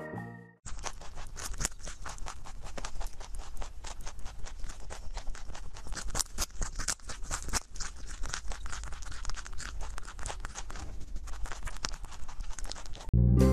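A rabbit rapidly crunching and chewing a carrot stick held up to a close microphone: a dense run of quick, irregular crisp clicks.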